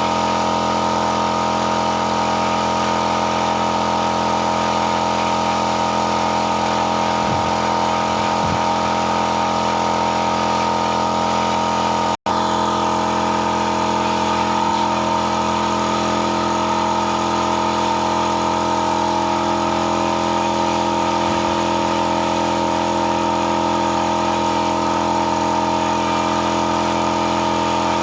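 A motor running steadily at one constant speed, with a brief cut to silence about twelve seconds in.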